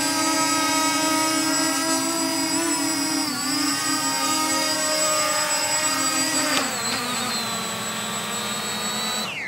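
Walkera Furious 320 quadcopter's motors and propellers whining steadily as it descends in return-home mode. The pitch drops as it touches down about two-thirds of the way through, then the motors wind down to a stop near the end.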